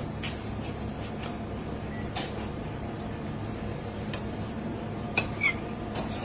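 Steady low hum of kitchen background noise, with a few light handling clicks and two sharper clicks about five seconds in.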